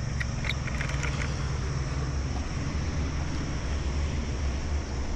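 CFMoto 450CL-C motorcycle's parallel-twin engine running at a steady cruise under road and wind noise, with a few light clicks in the first second.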